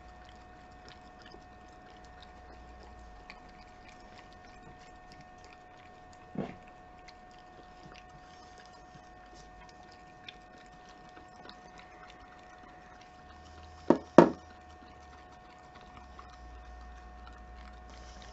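Keeshond dog licking and chewing food from a metal utensil, with many small wet clicks. There is one louder knock about six seconds in and two sharp knocks close together about fourteen seconds in. A steady hum runs underneath.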